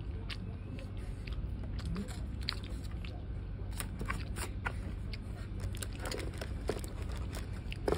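A person chewing a mouthful of steamed chocolate marble brownie, with scattered small mouth clicks and smacks throughout.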